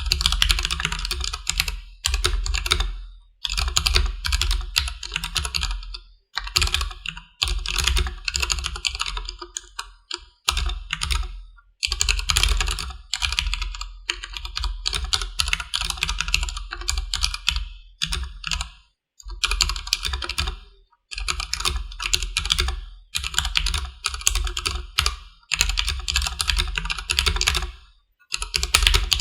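Steady typing on a Durgod Taurus K320 tenkeyless mechanical keyboard with stock Cherry MX Black linear switches: dense runs of keystrokes broken by short pauses every second or two.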